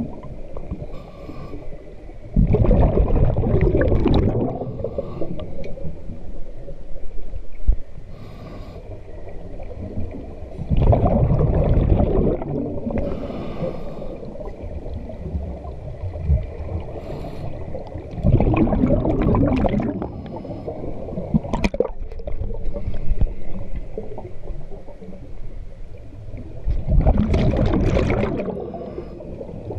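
Scuba regulator breathing underwater: a loud gurgling rush of exhaled bubbles about every eight seconds, four times, with quieter hissing breaths drawn through the regulator in between.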